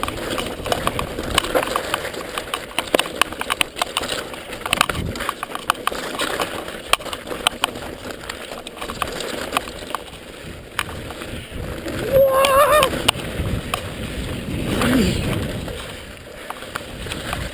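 Mountain bike riding over a rough trail: steady tyre and wind noise with frequent clicks and knocks of the bike rattling over bumps. A brief wavering shout-like sound comes about twelve seconds in.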